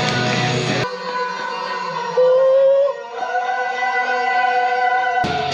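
Guitar rock music; about a second in it switches abruptly to long held notes, with one note sliding upward in the middle.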